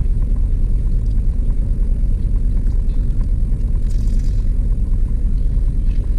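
Steady low rumble of an idling car, heard inside the cabin. About four seconds in comes a brief crunch as a bite is taken from a crisp fried pie.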